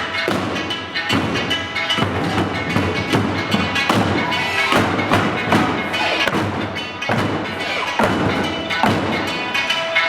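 Eisa taiko drums struck in unison over Okinawan-style backing music, with heavy drum strokes landing about once a second.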